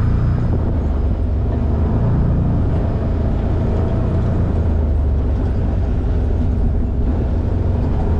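Side-by-side off-road vehicle's engine running at a steady low drone while driving on a dirt track, heard from the driver's seat.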